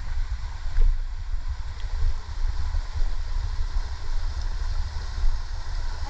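Wind rumbling on the microphone of a hand-held camera, a loud fluttering low rumble, over an even hiss and a few faint clicks.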